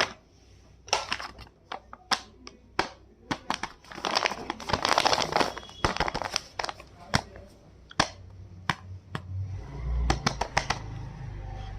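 Packaging of a blind bag crinkling and rustling as it is handled and opened by hand, with many sharp crackles and taps and a dense stretch of rustling about four seconds in. A low rumble comes in near the end.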